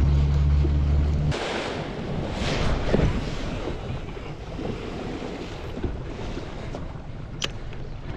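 Boat engine humming low and steady, cut off abruptly about a second in, leaving wind on the microphone and the wash of the sea against the boat.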